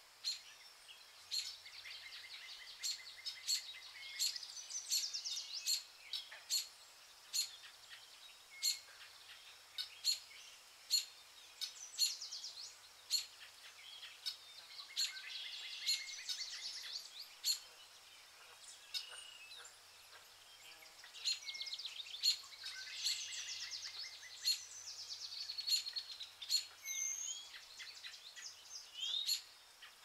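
Rainforest birdsong: many birds chirping and trilling together, with sharp chip notes about once or twice a second.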